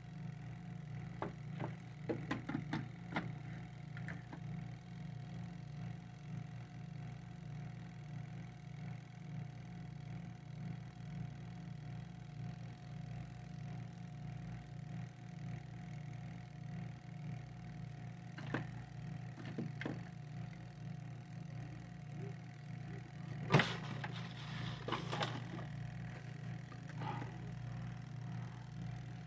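Washing machine wash motor running on the bench with a steady low hum. A few scattered clicks and knocks come over it, the loudest a sharp knock about three-quarters of the way through.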